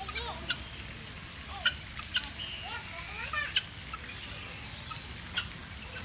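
Guineafowl calling: a series of short, sharp calls at uneven intervals, some with quick swoops in pitch.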